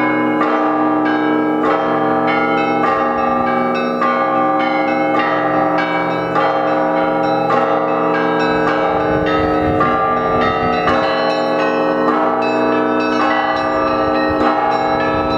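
Russian Orthodox church bells ringing in a continuous peal: many bells of different pitches struck in a fast, unbroken rhythm, the small bells striking several times a second over the steady hum of the larger bells.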